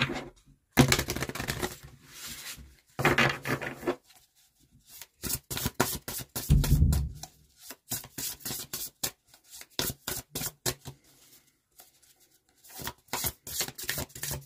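A large deck of oracle cards being shuffled by hand: two longer rustling runs, then a long series of quick card slaps, about three or four a second, with a low thump about six and a half seconds in.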